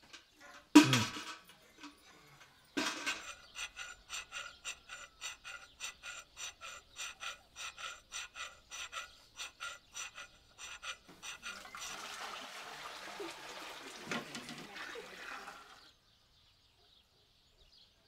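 Metal kitchen vessels handled by a wood fire. There is a loud clang about a second in. Then comes a long run of ringing strokes, about two or three a second, for some eight seconds. After that, about four seconds of splashing, pouring water, stopping suddenly.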